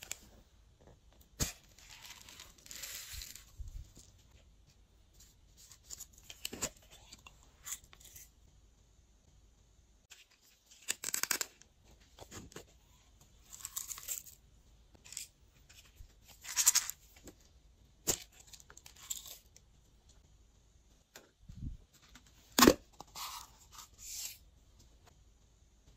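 Hands mixing and kneading glossy slime: irregular bursts of sticky crackling and tearing, with scattered sharp pops and clicks. The loudest pop comes near the end.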